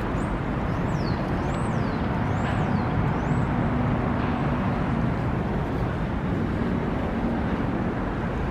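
Steady city traffic noise. Over the first three seconds or so, a few short, high whistles rise and fall above it.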